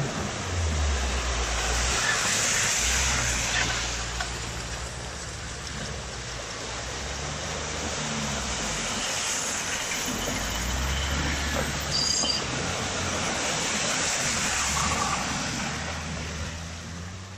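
Cars driving through a deep mud track: engines run and rev up and down several times as the tyres churn through mud and water.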